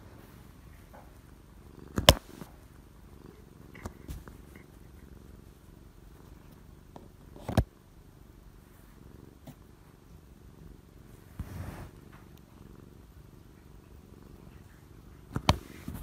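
Domestic cat purring steadily close to the microphone, a low continuous rumble. Three sharp knocks, about 2, 7.5 and 15.5 seconds in, as the cat paws at the phone; the first is the loudest.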